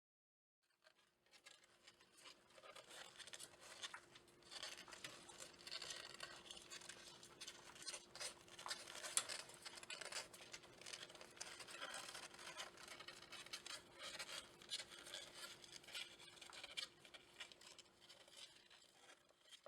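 Faint rustling and scratching with many small clicks over a steady low hum, starting abruptly just under a second in; the loudest click comes about nine seconds in.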